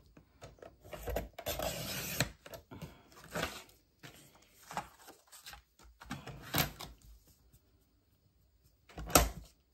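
Cardstock being slid and lined up on a Fiskars paper trimmer: a rasp lasting about a second, starting about a second in, then a few light knocks, the sharpest near the end.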